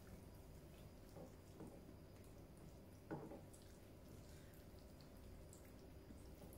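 Near silence with faint eating sounds: quiet chewing and wet mouth smacks, one slightly louder about three seconds in.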